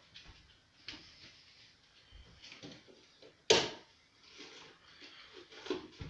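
A single sharp knock about three and a half seconds in, amid faint scattered clicks and rustling.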